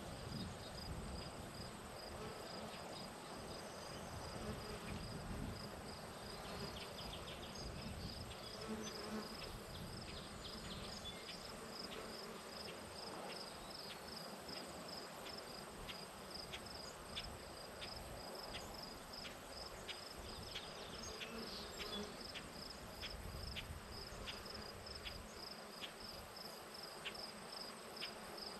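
Field ambience: an insect chirping steadily, short high pulses about three a second, over a low, uneven rumble.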